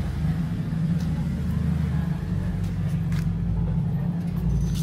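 Nissan Cima F50's 4.5-litre V8 running at low revs through an IMPUL aftermarket exhaust as the car pulls slowly away. A steady low exhaust note.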